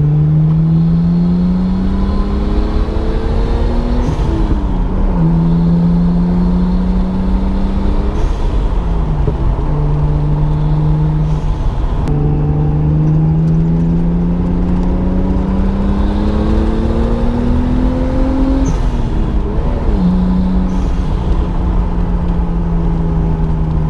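Nissan RB25 turbocharged inline-six under way, heard from the driver's seat: the pitch climbs, falls back at a gear change about four seconds in, holds, then climbs steadily for several seconds to another gear change near the end. Wind and road noise run underneath.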